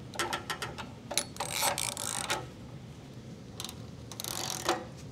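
Hand ratchet wrench clicking in short quick runs while the bolts on an exhaust downpipe flange are tightened, busiest in the first half, with a few shorter runs near the end.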